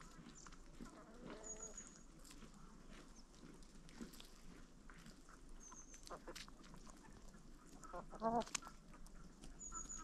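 Free-range chickens foraging: soft hen calls, then about eight seconds in a louder burst of rapid clucking. Faint ticks of pecking and scratching, and a small bird's short high twitter about three times.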